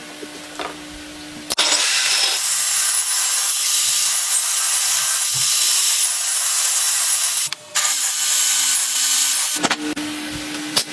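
Power tool working wood: a steady high-pitched hiss that starts about a second and a half in, drops out briefly, and stops shortly before the end.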